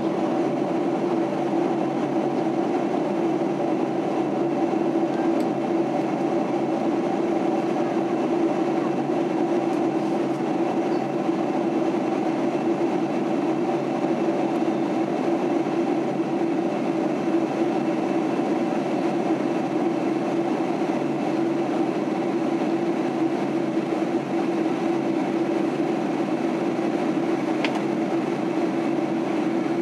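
Steady airliner cabin noise inside a Boeing 767-300 in flight: the even rush of engines and airflow, with a steady low hum running under it.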